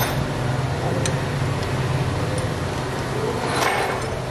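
A steady low mechanical hum with a few faint clicks and a brief noisier sound a little before the end.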